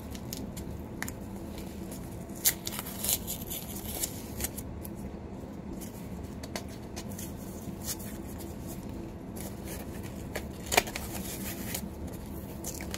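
Hands tearing and pulling open a small taped cardboard mailer: irregular rustling and crinkling of paper and cardboard, with a sharper tear or snap a couple of seconds in and another near the end.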